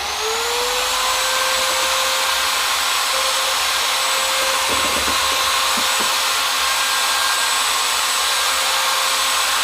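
Total 1400 W handheld electric paddle mixer's motor running at speed, a steady whine over fan hiss, rising in pitch as it winds up at the very start and then holding steady.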